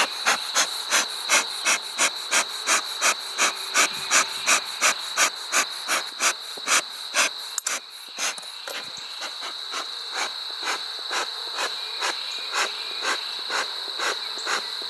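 Beekeeper's smoker bellows pumped in quick, even puffs, about three a second at first and somewhat slower in the second half, each puff a short hiss of air. The bellows are being worked to keep damp pine straw smouldering as the smoker threatens to go out.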